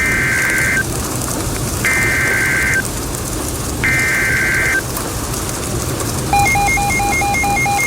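Emergency Alert System SAME header data bursts from a NOAA Weather Radio broadcast: three buzzy digital screeches of just under a second each, about two seconds apart, coding a new warning. About six seconds in, rapid electronic alert beeping at two pitches starts, pulsing about five times a second, over a steady hiss.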